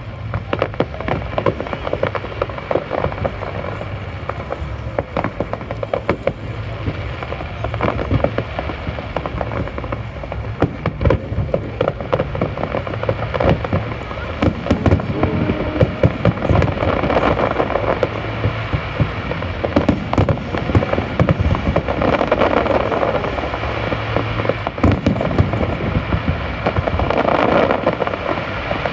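Fireworks display: a continuous, dense run of bangs and crackling pops from aerial shells, many bursts close together.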